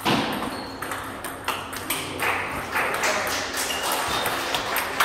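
Table tennis rally: the ball clicking sharply back and forth off the paddles and the table, a couple of hits a second.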